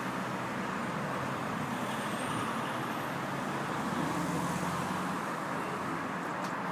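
A motor vehicle's engine running steadily, mixed with a continuous noise of road or traffic.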